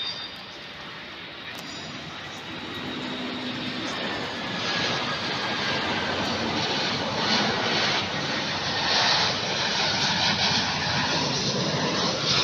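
Jet airliner's engines, a dense roar that builds over the first few seconds and then holds loud and steady as the aircraft passes.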